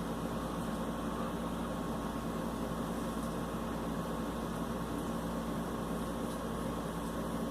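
A steady machine hum with an even hiss, unchanging throughout; no coughs are heard.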